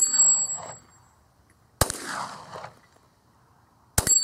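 Three 9mm Glock pistol shots about two seconds apart, each trailing off in an echo. The first and the last are each followed by the high ring of a steel target being hit.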